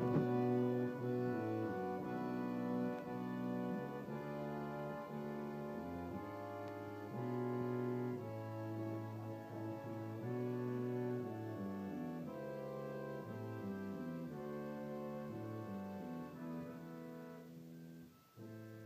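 Tune from a set of mechanical music dolls, figures of an accordionist and a tuba player: a melody in held notes over a stepping bass line. It breaks off briefly near the end.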